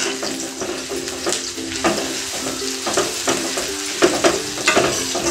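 Chopped onions sizzling in hot oil in a metal kadhai as a perforated steel spatula stirs them, with irregular scrapes and clinks of the spatula against the pan.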